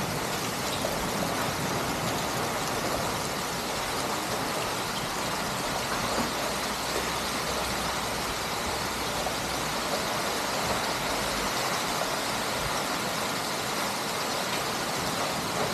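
Heavy rain pouring steadily onto a paved courtyard, an even hiss of downpour with no breaks.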